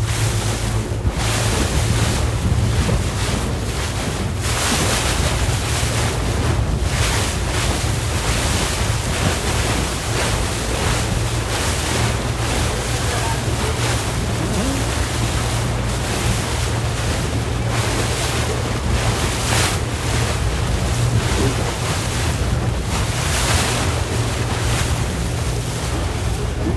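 Wind buffeting the microphone in irregular gusts over the steady low drone of a speedboat's engine and water rushing past the hull.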